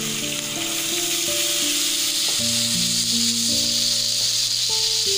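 Sliced onions sizzling steadily in hot oil in a kadhai, with background music of low held notes over it.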